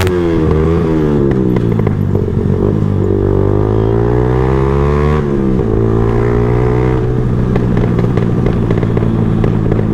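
Yamaha R15M motorcycle's 155 cc single-cylinder engine and exhaust under way. The revs dip at the start and climb slowly, then drop sharply about five seconds in and hold steady after that.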